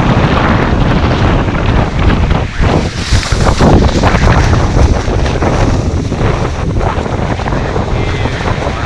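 Strong wind blowing hard across the microphone, loud and gusting.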